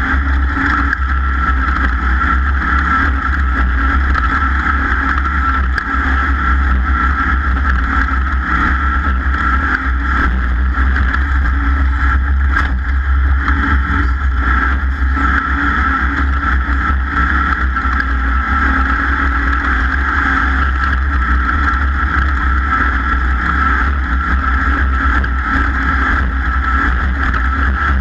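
Off-road race vehicle's engine running hard at a steady pitch, with no change in revs.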